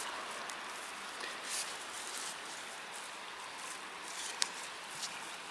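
Quiet scraping of a hand drill bit turning in a dead log, twisted by a stick handle, with one sharp click about four seconds in.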